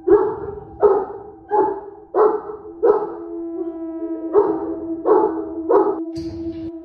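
Fila Brasileiro guard dogs barking: eight deep barks about 0.7 s apart, with a pause near the middle. A steady held tone sounds underneath, and a short rush of noise comes near the end.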